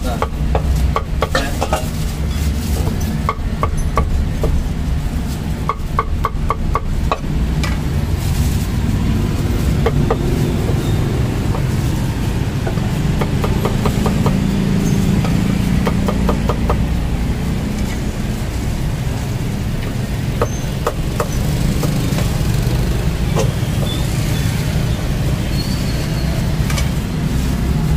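A steel cleaver chopping roast duck and cucumber on a thick wooden chopping block, in quick runs of sharp knocks with pauses between, over a steady low rumble of street traffic.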